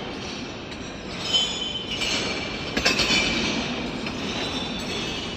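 Cut-steel face discs of Kadishman's Shalekhet clanking and scraping against one another underfoot, a jangling metallic clatter with ringing tones. The sharpest clanks come about one and a half and three seconds in.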